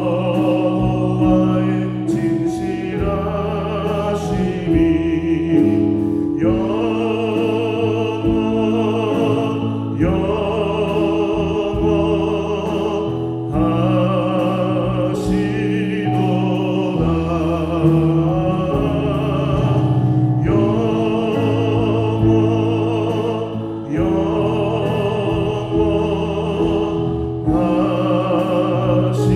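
A church praise band plays a worship song: a group of singers holds long phrases with vibrato over electric bass and a band accompaniment, the phrases breaking every few seconds.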